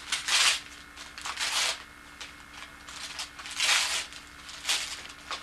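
Wrapping paper rustling and tearing in four short bursts as a small present is unwrapped.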